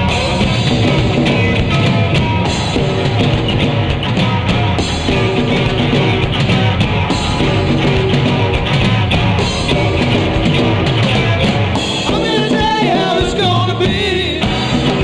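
Rock band playing live: drums, bass and electric guitars, with a wavering high line near the end.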